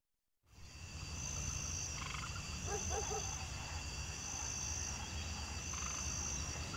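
Night ambience fading in: frogs croaking and insects trilling, with a short high trill repeating about every one and a half seconds over a low steady rumble.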